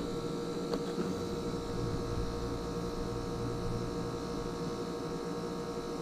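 ClimateMaster geothermal heat pump running with a steady hum made of several fixed tones, the unit working normally.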